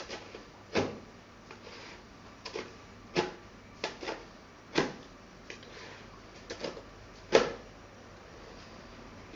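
Pizza being chopped into slices with a long knife, the blade knocking against the pizza tray with each cut: a string of about ten sharp, irregular knocks, the loudest near the end.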